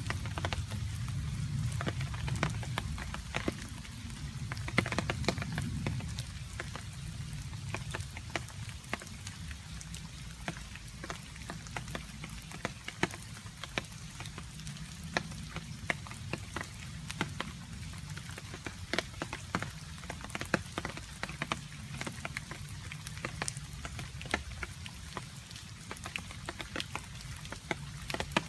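Rain falling, with water drops dripping onto a surface in many sharp, irregular ticks. Underneath runs a steady low rumble, a little stronger in the first six seconds.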